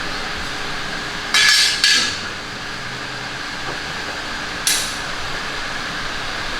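Workshop tool noise: three short, sudden bursts, two close together about a second and a half in and one more near five seconds, over a steady background hum of the shop.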